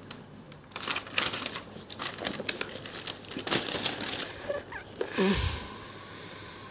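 Paper pages of a spiral-bound notebook being turned, crackling and rustling, with a low thump a little after five seconds in as the page settles.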